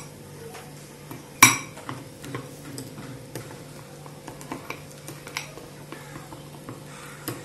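A spoon stirring whipped meringue and blue food colouring in a ceramic bowl, with irregular small clinks and scrapes against the bowl's side and one louder knock about a second and a half in.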